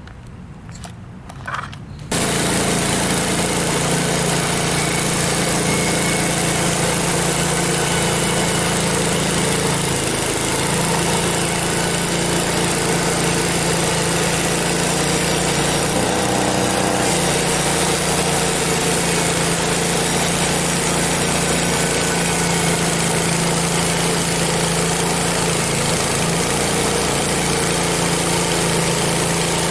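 Small gasoline engine of a Frontier OS23 band sawmill running steadily under load as the band blade cuts through a log, starting abruptly about two seconds in. The blade is one the operator suspects is dull, after it left wavy cuts.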